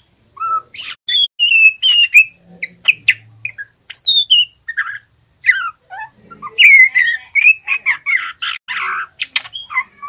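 Young male white-rumped shama in juvenile plumage practising its song: a busy string of short whistled notes sliding up and down in pitch, broken by brief pauses, with a few harsh, raspy notes near the end.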